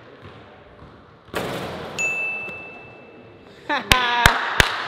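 A short burst of noise, then a bright, steady ding tone held for more than a second. After it a man laughs and whoops, with three sharp hand claps near the end.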